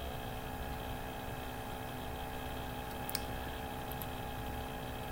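Steady electrical mains hum, with a single computer mouse click about three seconds in.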